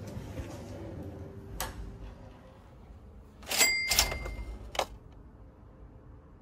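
A sharp click, then about two seconds later a louder cluster of clacks with a brief metallic ring, and one last click just under a second after that.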